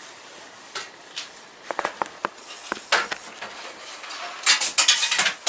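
Irregular clicks and knocks from a Daikin air conditioner indoor unit, thickening into a rapid run of loud crackling clicks near the end that stops abruptly.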